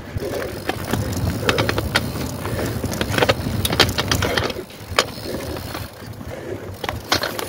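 Mountain bike clattering over rough trail: irregular rattles and clicks from the chain and frame over a low rumble of tyres and wind, easing off a little past the middle.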